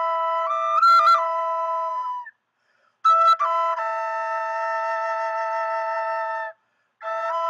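Flute playing slow, long-held notes, with two pitches sounding together. Phrases break off in short pauses, about two seconds in and again near the end, and each new phrase opens with a quick flutter of notes.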